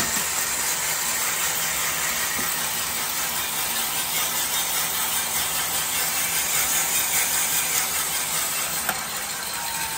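Green coffee beans being charged into a Kaleido Sniper M10 drum roaster: a sharp click as the hopper opens, then a steady, dense rattling hiss of the beans pouring in and tumbling in the turning drum. It eases a little after another click near the end.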